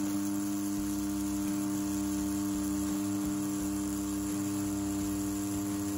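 CNC T4 rotary tattoo pen running at 7 volts with a bug pin 5-round liner needle while pulling a line, a steady, even hum.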